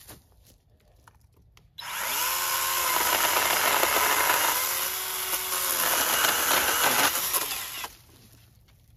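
Battery-powered electric saw cutting through a peach tree limb: the motor spins up suddenly about two seconds in, its pitch sags and recovers midway as it bites into the wood, and it stops abruptly near the end.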